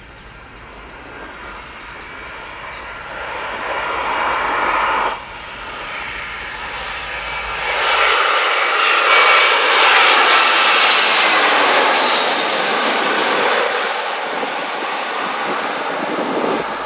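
Lufthansa Airbus airliner's twin jet engines on landing approach, the noise building as it comes in low, dropping suddenly about five seconds in, then swelling to its loudest as it passes overhead around ten seconds in and easing off with a falling whine.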